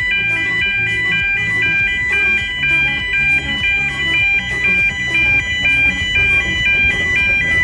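Background music: a bright chiming melody in repeating short notes over a steady pulsing bass line.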